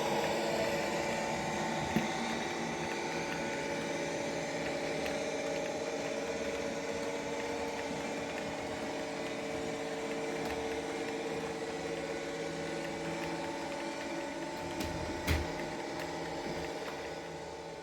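Model Class 55 Deltic's DCC sound decoder playing the drone of its twin Napier Deltic engines through the model's small speaker. There is a sharp click about two seconds in and a louder knock near the end, and the sound begins to fade at the very end.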